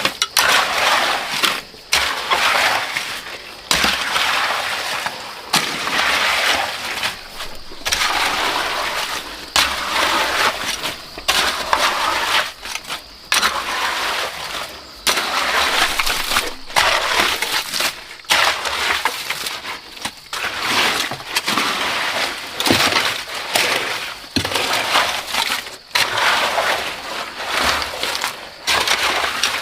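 A shovel scraping and scooping gritty concrete mix, in repeated strokes about one every second or two.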